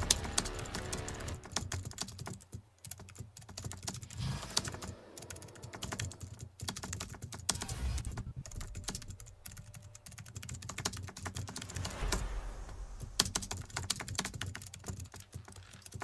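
Computer keyboard typing sound effect: a fast, irregular run of key clicks.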